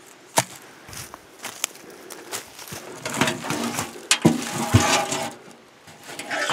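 Footsteps crunching and rustling through dry fallen leaves and twigs, heaviest from about three seconds in, with a few sharp clicks or knocks, the first about half a second in.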